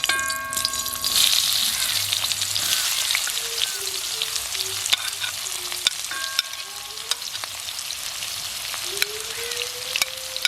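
Sliced onions frying in hot coconut oil: a sizzle that swells about a second in as they hit the pan and then slowly eases, with the utensil stirring them clicking against the pan.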